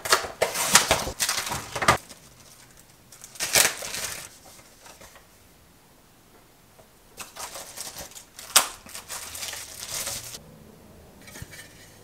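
Card-and-plastic blister packaging being torn open and crumpled by hand, in rough bursts of ripping and crinkling with a quieter spell in the middle.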